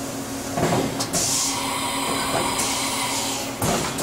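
Hurco BMC-20 CNC vertical machining center going through an automatic tool change over a steady machine hum: a clunk about half a second in, a hiss of air lasting about a second and a half, and another clunk near the end.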